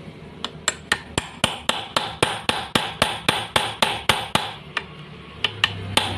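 Hammer striking a steel socket used as a bearing driver, about four sharp metallic blows a second with a short pause near the end, tapping a new ball bearing down onto a shaft.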